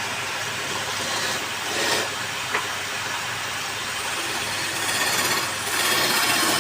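Wood lathe running, with a tool working the spinning wood to a steady scraping hiss that grows louder about five seconds in.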